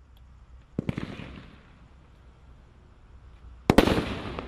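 Brothers Pyrotechnics Speed Trap 13-shot 350 g cake firing. A cluster of sharp bangs comes about a second in, then a louder cluster near the end, and each trails off in echo.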